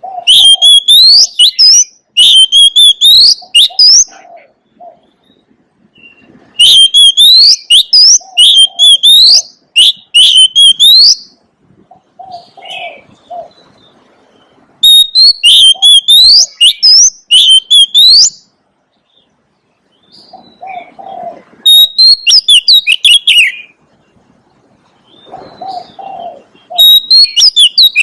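Oriental magpie-robin singing: loud bursts of rapid, sweeping whistled phrases, repeated in groups with short pauses between. A dove coos softly and low in some of the gaps.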